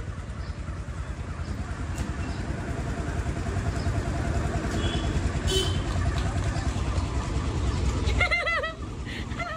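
Motor vehicle engine running close by: a steady, pulsing low rumble that grows louder in the middle and stops about eight seconds in. A short, squeaky chirping call follows near the end.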